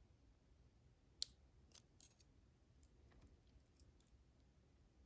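Faint, light metallic clicks and ticks from small lock parts and tools being handled while pins are loaded back into a padlock. One sharper click comes about a second in, followed by a scatter of fainter ticks.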